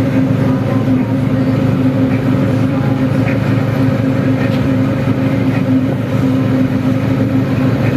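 Pleasure boat's engine running steadily under way, a constant low hum.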